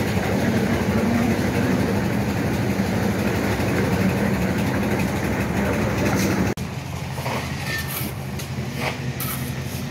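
A steady engine drone that cuts off abruptly about two-thirds of the way in, leaving a quieter background with a few short scrapes and knocks.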